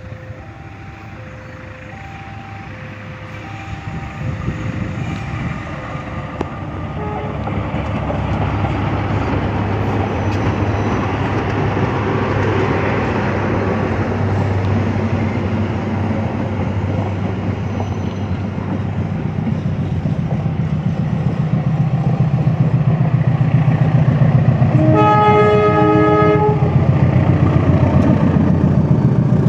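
A KAI CC206 diesel-electric locomotive and its train draw steadily louder, with engine drone and rail noise building. For the first several seconds a two-tone electronic warning beeps about once a second. About 25 seconds in, the locomotive's horn sounds once for about a second and a half.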